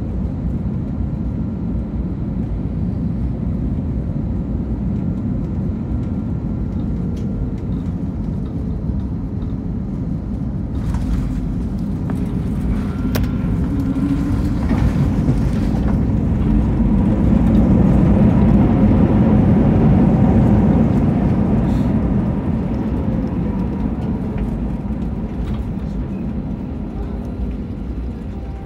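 Cabin noise of an Airbus A321 landing: a steady engine and airflow noise on final approach, then bumps and rattling as the wheels touch down about 11 s in. The engines then swell to a louder noise for reverse thrust and die down again as the jet slows on the runway.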